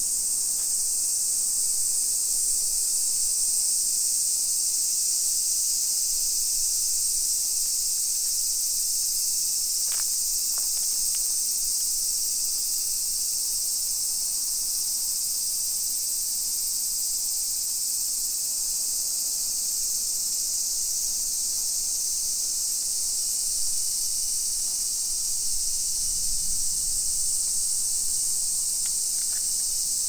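Chorus of summer cicadas: a loud, steady, high-pitched buzzing hiss that never lets up.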